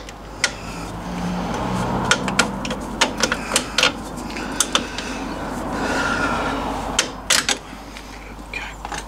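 Irregular sharp metal clinks and taps as the steel bolts, spanner and mounting plate of an MGB's rear leaf-spring mount are worked loose and slid off under the axle, with a low rustle of handling between them.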